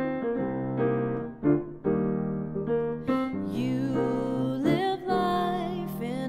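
Grand piano playing a slow sequence of chords, struck roughly every second. In the second half a woman's singing voice joins on a held, wavering note.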